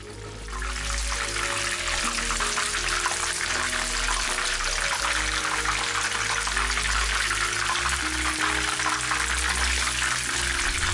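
Chicken wings deep-frying in hot oil in a pan: a dense, steady sizzle and crackle that swells up in the first second, with background music playing underneath.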